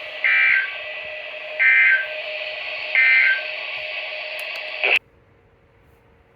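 NOAA Weather Radio sending the three SAME End-of-Message data bursts that close an EAS alert: short, loud two-tone digital warbles about 1.4 s apart over steady radio hiss. About five seconds in the transmission cuts off with a click, leaving a faint hum.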